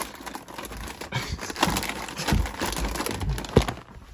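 Plastic bag of shredded cheese crinkling and rustling as it is handled and pulled out of a refrigerator drawer, with a sharp knock about three and a half seconds in.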